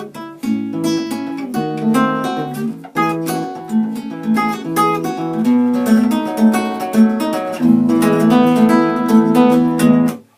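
Acoustic guitar played with quick plucked notes and strummed chords. It stops abruptly near the end.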